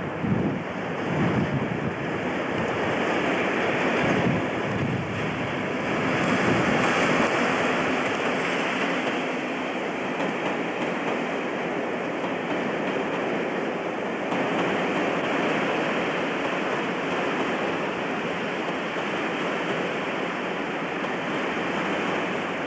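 Class 50 diesel-electric locomotive, with its English Electric 16-cylinder diesel, hauling coaches through the station, heard as a steady mix of engine and rail noise on a camcorder microphone. It is a little louder in the first few seconds and again between about six and nine seconds in.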